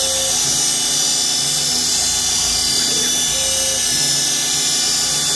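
CNC mill's high-speed spindle whining steadily as a fine engraving cutter cuts chequering lines into a round workpiece. Short hums of different pitch come and go every second or so as the machine moves.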